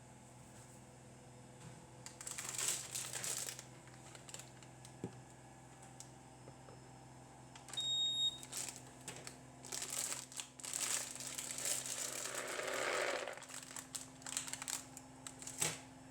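Crinkling and rustling in irregular bursts, as of something being handled by hand, with one short, high electronic beep about eight seconds in.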